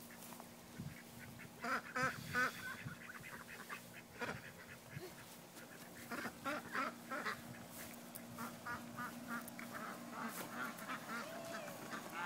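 Chickens clucking in several short bursts of rapid calls, over a faint steady hum.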